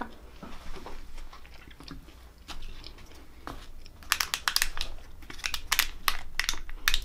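Soft chewing and mouth sounds of someone eating, then about four seconds in a loud run of sharp crackling crinkles as the foil lid is peeled back from a small plastic dipping-sauce cup.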